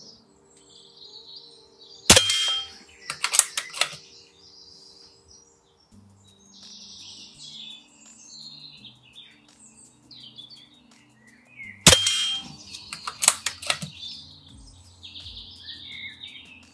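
Gamo GX40 PCP air rifle in .177 firing two shots about ten seconds apart, each a sharp crack followed by a quick run of clicks. Birds chirp between the shots.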